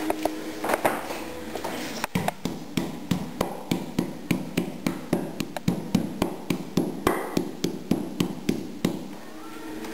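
A pork chop being beaten flat with a meat mallet on a wooden cutting board. It is a steady run of short, dull blows, about three a second, that starts about two seconds in and stops near the end.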